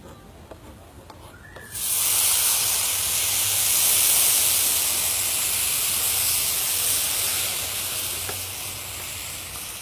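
Broth poured into a wide pan of hot, freshly toasted risotto rice, hissing and sizzling with a rush of steam. It starts suddenly about two seconds in, is loudest a couple of seconds later, then slowly dies down. This is the first addition of broth to the toasted rice.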